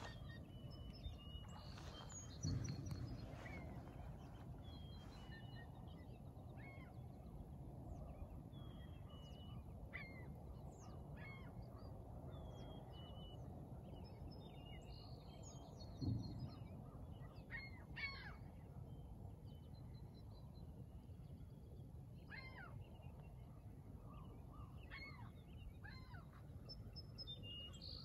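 Many birds calling and chirping in short, scattered notes over a faint steady background hiss. Two dull low thumps stand out, about two and a half seconds in and about sixteen seconds in.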